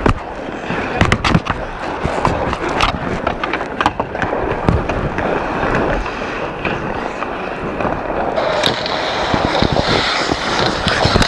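Ice hockey skates scraping and carving on the ice, with many sharp clacks and knocks of sticks and puck, picked up close by a camera inside a goalie mask. A hissing scrape grows louder late on.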